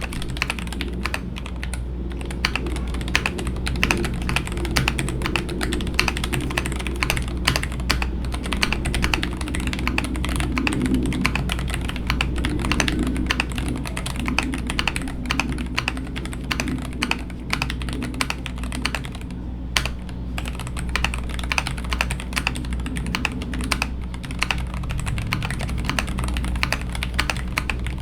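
Continuous fast typing on a Royal Kludge RK N80 low-profile mechanical keyboard: a dense, irregular run of short-travel key clicks.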